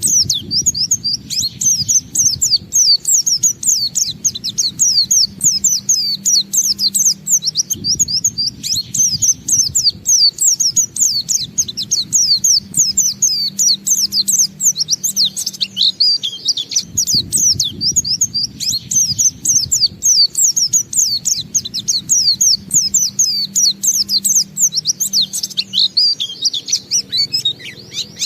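White-eye (pleci, Zosterops) singing the long, unbroken 'ngalas' song: a fast, continuous run of high chirping notes with no pauses.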